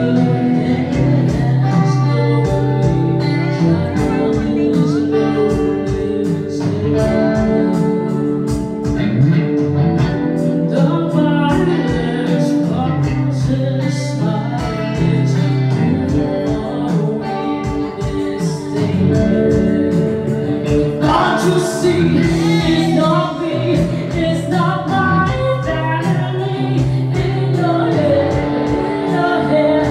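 Live amplified music: a woman singing into a microphone, accompanied by a man playing guitar.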